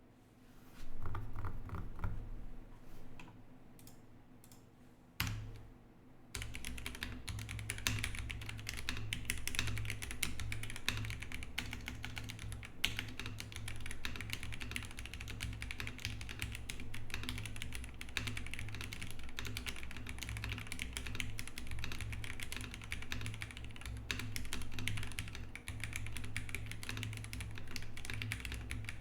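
Typing on a Rover84 V3 mechanical keyboard with lubed Gateron Pro Yellow linear switches and PBT keycaps. After a quieter opening with a single click, fast, continuous keystrokes begin about six seconds in.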